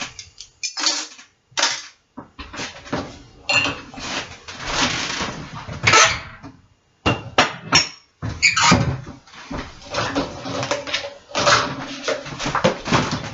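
Clean dishes clattering and knocking as a dishwasher is unloaded and the pieces are put away, with cupboard doors opening and closing. A couple of the knocks ring briefly.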